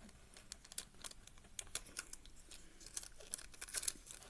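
Sticky tape being handled and pulled while small plastic cube pieces are fitted together: scattered light clicks and crinkling.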